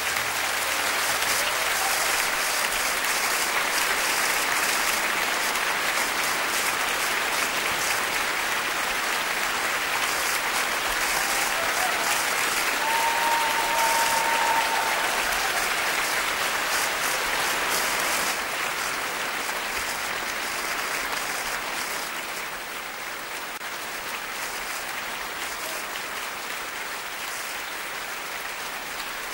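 Large audience applauding steadily after a song ends, easing down somewhat about twenty seconds in.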